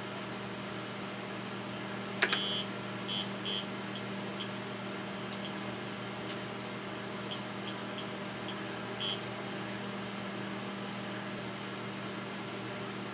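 TRS-80 Model 16B computer humming steadily from its cooling fan and power supply. About two seconds in there is a click, then a string of short, high chirps from the 8-inch floppy drive as it loads the 68000 memory test program.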